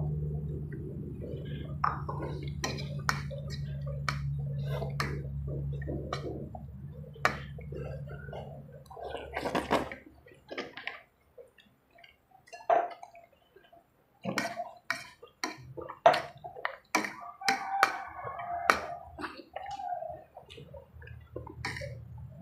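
Close-miked eating sounds: chewing, slurping spaghetti and smacking lips, with small clicks of a fork. A low steady hum runs under the first half and stops about ten seconds in.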